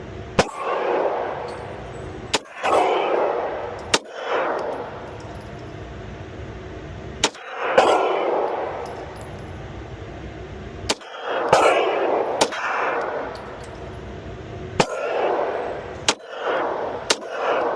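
Glock 19 9mm pistol fired in slow, unevenly spaced single shots, about a dozen in all. Each shot is a sharp crack followed by a short ringing tail, over a steady low hum.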